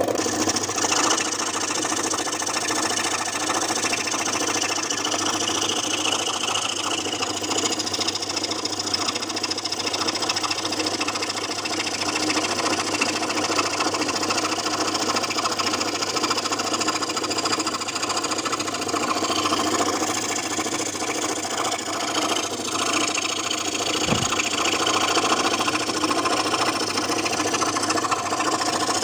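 Scroll saw running steadily, its blade moving rapidly up and down.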